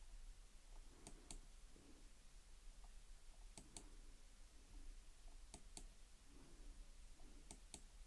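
Faint computer clicks in pairs, about one pair every two seconds, as a document is stepped forward; otherwise near-silent room tone with a faint low hum.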